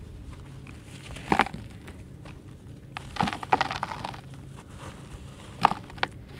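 Dry red dirt cakes crunching and crumbling as hands squeeze them apart, the grit spilling onto loose dirt. There is a sharp crunch about a second and a half in, a longer run of gritty crumbling around the middle, and two more crunches near the end.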